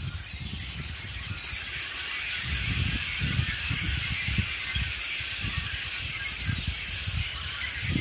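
A large flock of small birds perched in a bare tree, calling all at once in a dense, continuous chatter, with irregular low rumbling underneath.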